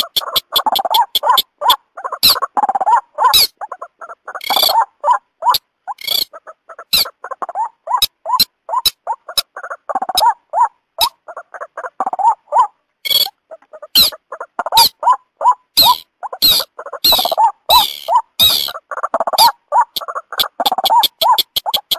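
White-breasted waterhen (ruak-ruak) calling in rapid, repeated croaking notes, mixed with the sharp, high, quick-fire calls of a second rail known locally as beker. It is a bird-lure call recording.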